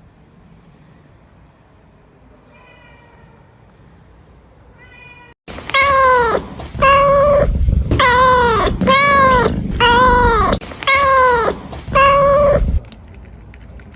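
Kittens meowing: a couple of faint meows, then from about five seconds in a loud run of about seven meows, each rising and then falling in pitch. The run stops abruptly near the end.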